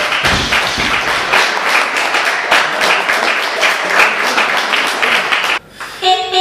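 Small audience clapping and applauding, cutting off suddenly about five and a half seconds in.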